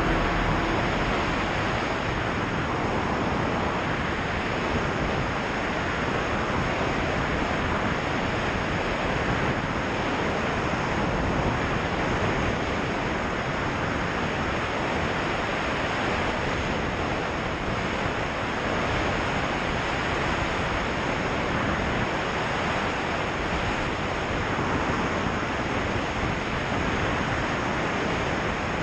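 Steady rush of air streaming past a camera mounted outside a soaring glider, with no engine note.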